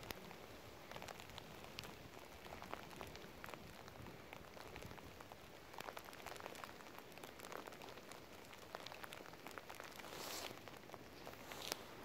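Faint steady rain, with many small raindrop ticks scattered through it. A brief louder hiss comes about ten seconds in, and a sharp tap near the end.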